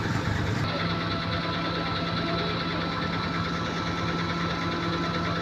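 Road construction machinery running, its engine holding a steady pitched hum at an even level.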